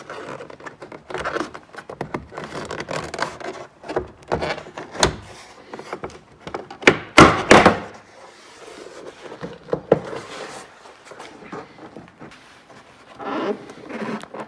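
Plastic interior door panel of a 2009 Toyota Tacoma being pulled off the door, with its retaining clips popping out in a series of sharp snaps and knocks amid plastic rubbing. The loudest snaps come together about seven seconds in.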